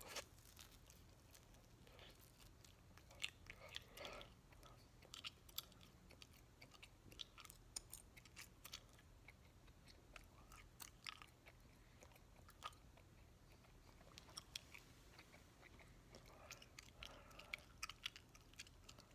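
A mouth chewing a wad of three pieces of Bubbaloo Tutti Frutti bubblegum: faint, irregular wet smacks and clicks of the gum.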